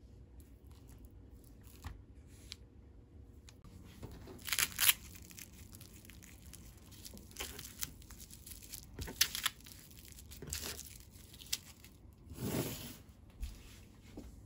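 Plastic cling wrap crinkling and tearing as portions of ground meat are wrapped, in scattered short bursts, loudest about four to five seconds in.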